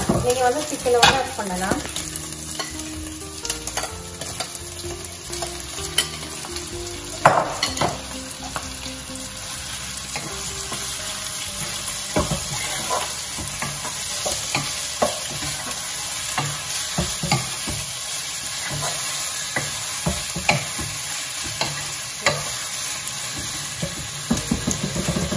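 Chopped vegetables and diced chicken sizzling in oil in a non-stick pot, stirred with a wooden spoon. A steady sizzle runs under many small knocks and scrapes of the spoon against the pot, with one louder clatter about seven seconds in.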